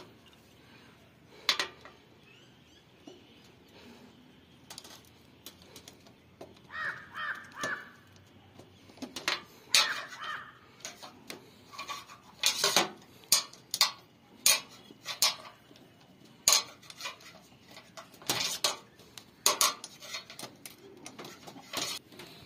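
Scattered metallic clicks, taps and clinks of hand-tool work on an air conditioner's electrical terminal block, as wires are fitted and terminal screws tightened. The clicks come sparsely at first and grow more frequent and louder in the second half.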